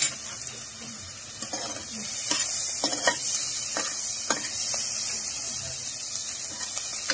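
Chopped garlic sizzling in hot ghee in a pressure cooker, being fried until crisp. A metal ladle stirs it, clinking against the pot several times in the first half.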